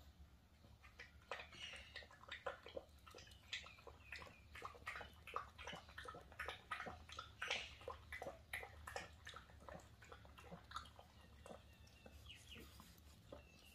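Puppies eating and licking from their bowls: many quick, irregular little wet clicks and smacks of chewing and lapping.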